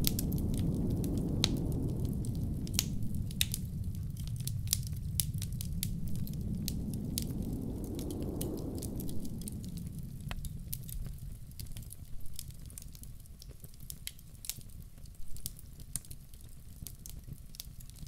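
Wood fire crackling in a fireplace with frequent sharp pops, over a low blizzard wind rumble that swells into a gust about halfway through and then dies down.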